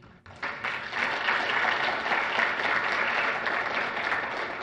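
Audience applauding, a dense patter of clapping that builds quickly about half a second in and begins to fade near the end.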